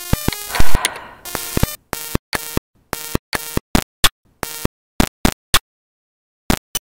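Electronic intro jingle: a loud whoosh about half a second in, then a run of short, clipped synth stabs with gaps between them, a pause of about a second, and two quick blips near the end.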